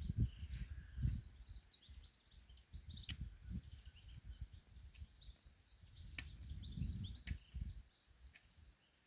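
Small birds chirping busily, with uneven low rumbling noise underneath and a few sharp clicks.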